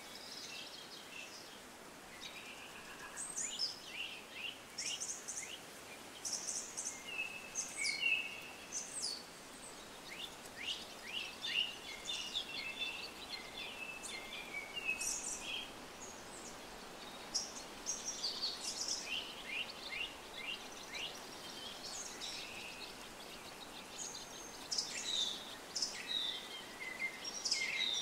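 Many small birds chirping and singing in quick, short, overlapping calls over a steady faint outdoor hiss.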